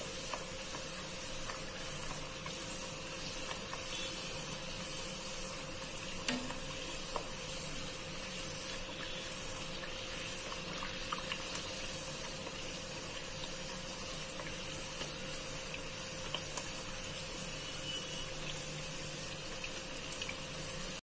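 Hot oil sizzling steadily around a wheat-flour puri deep-frying in a pan, with a few faint pops.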